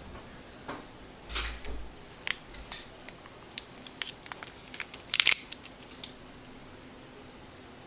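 Handling noise of a coiled black USB cable and its paper wrap being taken out of a phone's cardboard box and turned in the hands: scattered rustles and light clicks, with a soft bump about one and a half seconds in and the loudest cluster of rustles about five seconds in.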